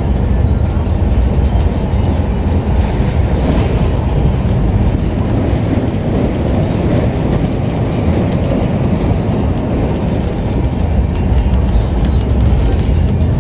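Steady rumble of an LHB passenger coach running at speed, its wheels rolling on the rails with some clatter from the track.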